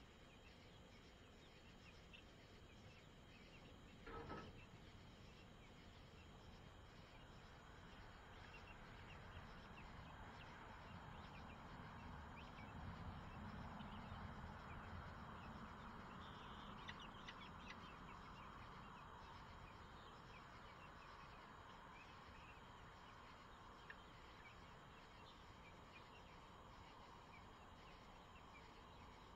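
Faint chicken sounds in a coop: one short call about four seconds in, then a soft murmur that swells and slowly fades, over faint ticking.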